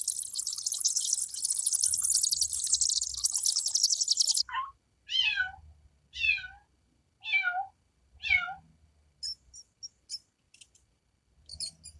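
Animal calls: a rapid, high-pitched rattling chatter for about four seconds, then five falling, mew-like calls about a second apart, then a few short high chirps.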